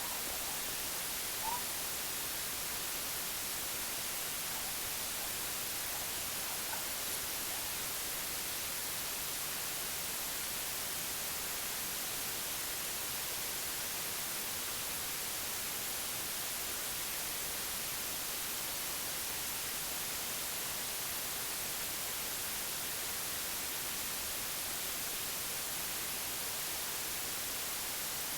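Steady, unbroken white noise: an even hiss that is strongest in the high frequencies.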